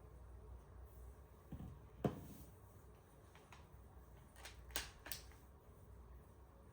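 A few quiet clicks and knocks from handling camera gear: a soft thump, a sharp click about two seconds in, then two more clicks close together near the five-second mark.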